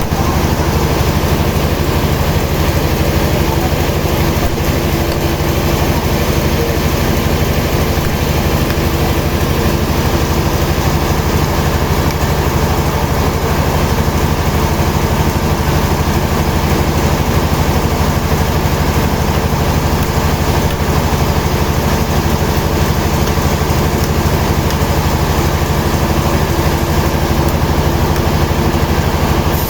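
Sawmill machinery running with a steady, loud engine-like drone that does not change in pitch.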